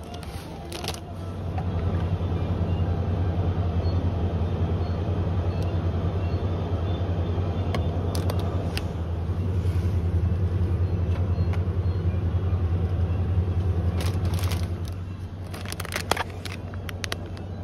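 Steady low drone of a motor vehicle running. It swells about a second and a half in and eases off near the end, with a few light clicks over it.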